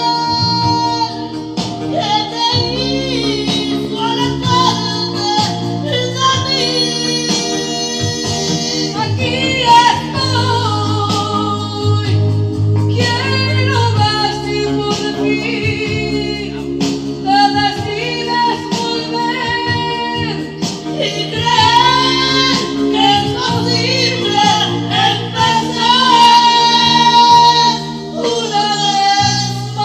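Women singing karaoke into corded microphones over recorded backing music, the singing loud and amplified throughout.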